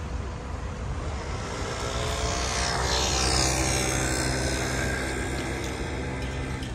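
A passing vehicle: a machine drone that swells to its loudest about three seconds in and falls in pitch as it goes by, over a steady low rumble of city traffic.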